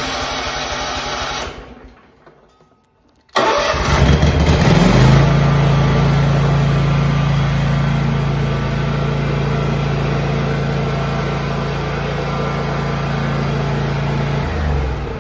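Scag V-Ride II stand-on mower engine running, then shutting off about a second and a half in. After a short pause it is restarted, catches, and settles into a steady run, with a slight change in the note near the end.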